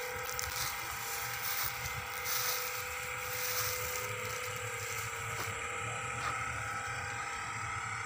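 A machine running with a steady hum made of several held tones.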